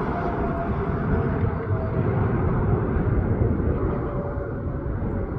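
Jet airliner's engines rumbling as it passes on landing approach, the sound slowly fading, with a faint whine that drifts down in pitch.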